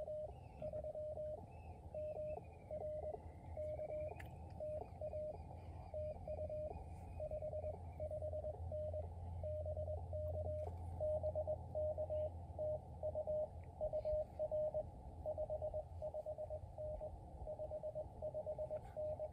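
Morse code (CW) from an amateur radio transceiver's speaker: a single steady-pitched beep keyed in dots and dashes over a band of receiver hiss, the keying denser in the second half.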